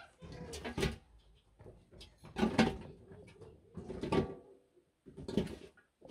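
Dry, flat dung fuel cakes being pulled off a stack and dropped into a metal basin: a series of rough scraping clatters, about one every second and a half.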